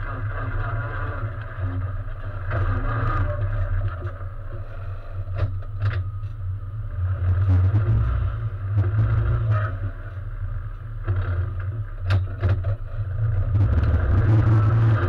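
Race car engine running at low revs, heard from inside the stripped cabin as the car creeps along, a deep steady rumble that swells and eases. A few sharp clicks or knocks come through about five and a half, six and twelve seconds in.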